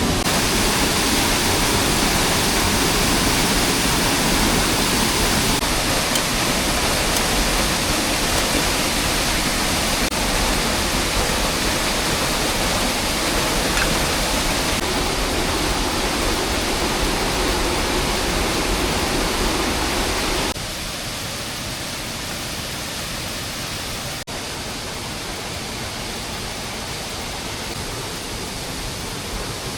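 Steady, even hiss of heavy rain falling in the forest. It drops to a quieter level abruptly about two-thirds of the way through.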